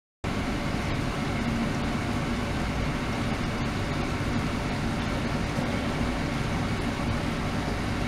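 Ultrasonic water bath running: a steady, even hiss with a faint low hum underneath.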